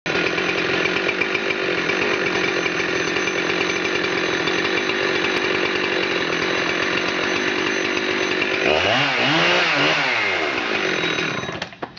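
Husqvarna 372 XP two-stroke chainsaw engine running steadily, revved up and back down a little before the end, then shut off with a few clicks just before the end.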